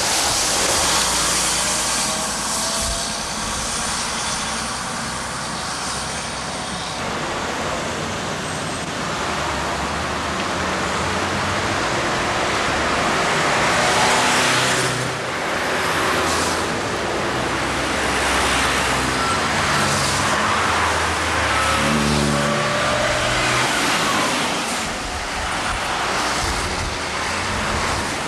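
Street traffic on wet roads: a city bus driving past close by at the start, then cars and a truck passing, with tyre hiss and engine noise.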